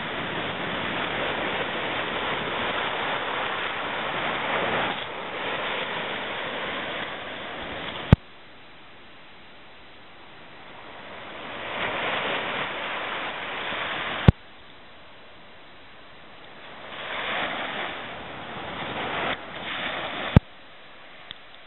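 Surf washing up the beach with wind on the microphone, swelling and fading as waves come in. Three sharp clicks about six seconds apart, each followed by a sudden drop in level before the surf builds again.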